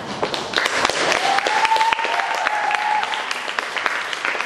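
Audience applauding with dense, steady clapping. A single long held cheer rises over the clapping from about a second in to about three seconds in.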